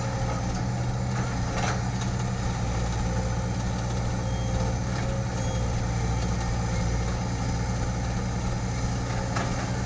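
Heavy equipment engine running steadily at a constant speed, a low, even hum with no change in pitch.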